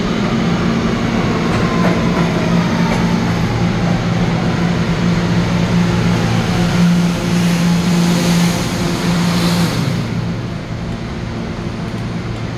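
R211A New York City Subway train pulling into the station and slowing to a stop: its motor whine falls in pitch as it slows, over a steady hum and wheel-on-rail noise. There is a hiss just before it halts about ten seconds in, after which the running sound drops away.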